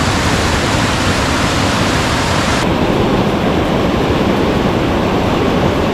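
Steady rush of a fast whitewater river pouring over boulders, loud and close. About two and a half seconds in, the sound turns duller.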